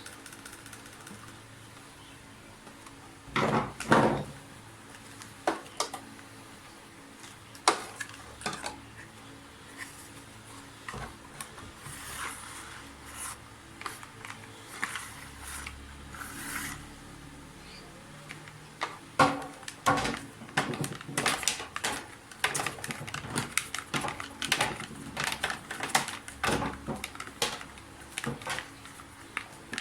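Hands handling and fitting plastic and metal parts of a vacuum cleaner's cord-rewind reel: scattered clicks and knocks, two loud knocks about four seconds in, then a dense run of clicking and clatter from about two-thirds of the way through.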